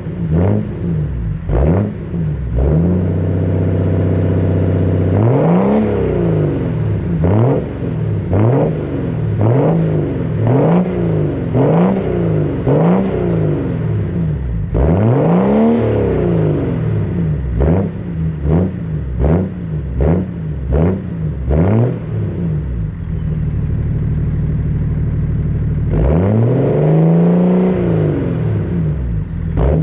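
Straight-piped exhaust of a BMW 730d E38's 3.0-litre inline-six diesel, revved over and over in quick blips about once a second, with a few longer, higher revs between them. Early on it holds a steady higher speed for a couple of seconds, and in the second half it settles briefly to an idle before another long rev.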